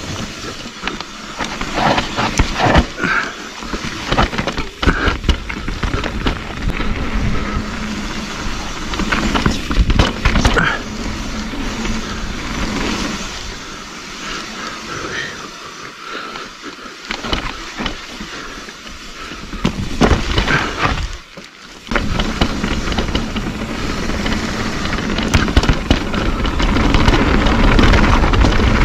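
Mountain bike descending a rough, rocky dirt trail: tyres on dirt with the bike knocking and rattling over bumps and drops. It eases briefly about twenty seconds in, then picks up again with a heavier rumble near the end.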